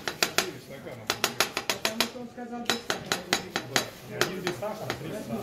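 Forged M390 chef's knife chopping carrot on a plastic cutting board: quick, sharp knife strikes against the board, several a second, with a short break about two seconds in.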